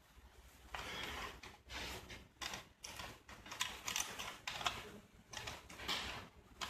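Light, irregular clicks and clatter from small electronics hardware being handled: a circuit board being fitted onto an Arduino board.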